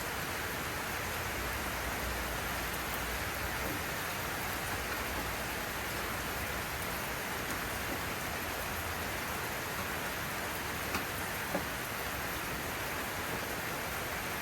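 Heavy rain pouring down, a steady even hiss, with a couple of faint clicks about eleven seconds in.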